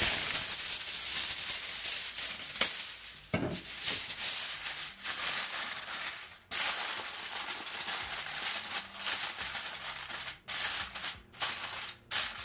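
Aluminium foil crinkling and crackling as a sheet is spread over a baking dish and pressed down around its edges. The crackling is continuous at first and comes in short separate spells near the end as the edges are crimped.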